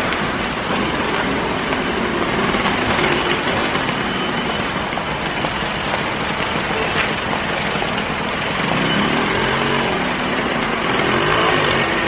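Busy city street traffic: a steady wash of engine and tyre noise from passing vehicles, including heavy trucks. In the last few seconds an engine note rises and falls.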